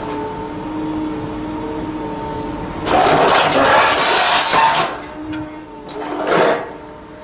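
Excavator engine and hydraulics running with a steady hum while a Promove SC2200 scrap shear cuts steel highway guardrail. A loud noisy burst comes about three seconds in and lasts nearly two seconds, and a shorter one comes about six seconds in.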